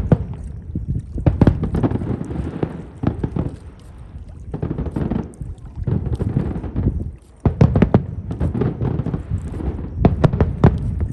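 Fireworks display recorded on a phone's microphone: a rapid, irregular run of shell bursts and crackles with low rumble underneath, easing briefly about four seconds in and dropping out for a moment just after seven seconds before resuming.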